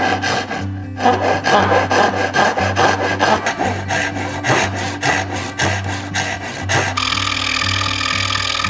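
Fine-toothed backsaw cutting a pine board by hand in quick strokes, about three a second, with a short pause about a second in. Near the end this gives way to a scroll saw running steadily through the pine.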